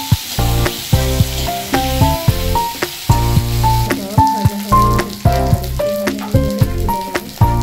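Potato pieces sizzling as they fry in oil in a wok, under instrumental background music with a repeating bass line.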